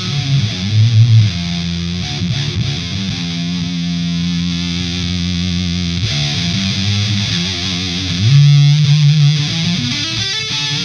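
Electric guitar played through a Gamechanger Audio Plasma Pedal, a fuzz that turns the signal into high-voltage sparks inside a tube: heavily distorted, long-sustaining notes with wavering pitch. The notes slide upward near the end, and the loudest notes come about eight seconds in.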